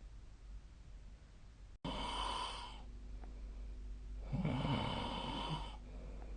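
A sleeping person snoring: two long, noisy breaths about two and a half seconds apart, the second lower and rougher. Just before the first breath the sound cuts out abruptly for a moment.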